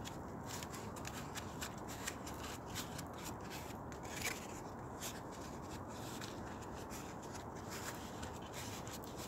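Strips of corrugated cardboard being rolled by hand into a tight roll: faint, irregular rustling and crackling of the cardboard.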